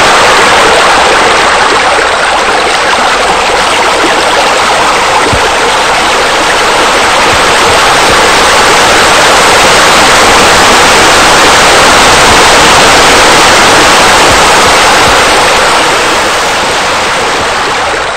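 Loud, steady rush of flowing water, like a waterfall.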